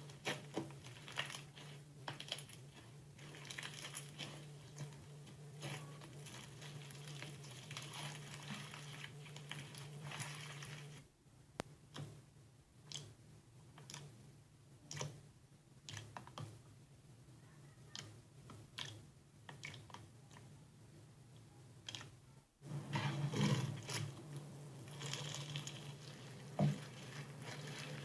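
Slime being squeezed and worked by hand: irregular small clicks, pops and squishes, over a low steady hum that drops out for about ten seconds in the middle.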